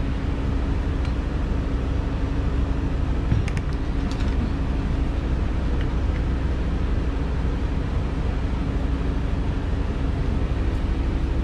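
Steady machine hum with a constant low drone inside a mobile grooming van, typical of the van's air conditioning running. A few faint brief ticks sound about three and a half to four seconds in.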